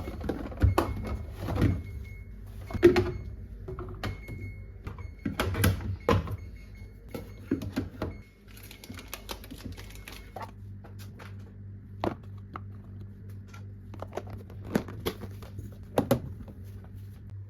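Irregular knocks, clicks and light clatter of household items being handled and set down, thicker in the first half, over a steady low hum.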